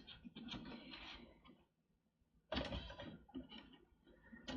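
Faint clicks and scraping of hands working the plastic ejector levers on a Power Mac G5's memory slots and pulling the DDR memory modules out, with a gap of silence of about a second partway through.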